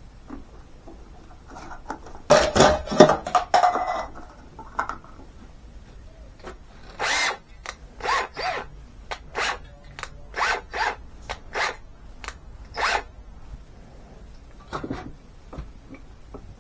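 A clatter of handling about two seconds in, then a cordless drill/driver run in about nine short bursts, each under half a second, as it drives a small screw.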